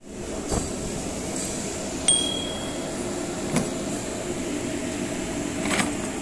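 Steady background hum with a few light clicks and knocks, one of them about two seconds in with a short metallic ring. The last knock comes as a hand reaches the plastic tool case.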